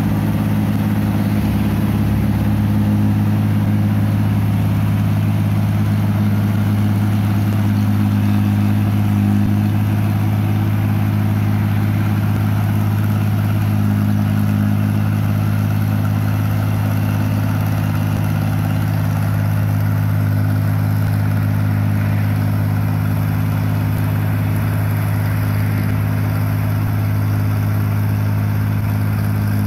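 New Holland 1545 combine harvester working through a rice crop, its diesel engine and threshing machinery running at a steady, constant pitch with no change in speed.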